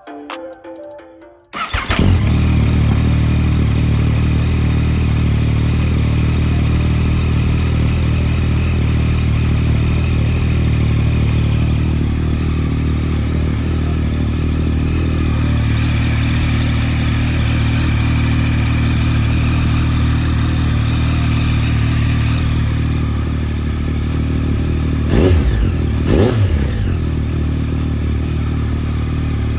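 Yamaha MT-09 inline-three motorcycle engine starting about two seconds in and then idling steadily, with two short blips of the throttle near the end.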